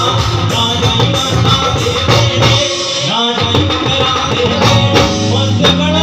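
Live band music played through stage speakers: a male singer over electric guitar and drums, with a short break in the low end about halfway through.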